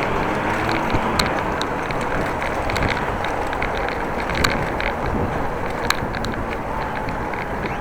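Riding a bicycle: steady wind noise on the microphone and tyre rumble, with scattered light clicks and rattles.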